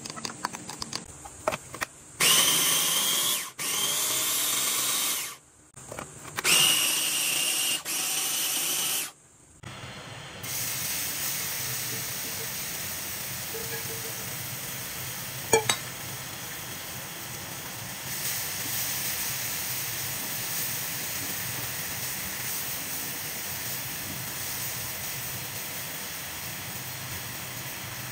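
Cuisinart Mini-Prep Plus food processor motor whirring in four short pulses, chopping mushrooms and shallot. Then chopped mushrooms sizzling steadily in a frying pan, with one sharp clink about halfway through.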